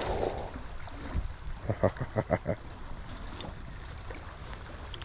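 A hooked fish splashing at the surface of a fast, shallow river right at the start, over the steady rush of the current. About two seconds in comes a quick run of about six sharp ticks.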